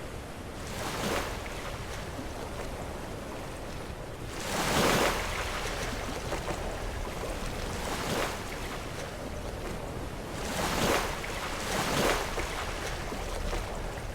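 Sea waves washing and breaking against rocks, with a steady wash of surf beneath and about five louder crashes, the biggest about five seconds in. Some wind noise on the microphone.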